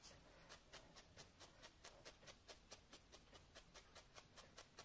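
Felting needle being jabbed over and over through wool into a felting mat: faint, even ticks, about four to five a second, as the wrapped wool round the neck is felted in.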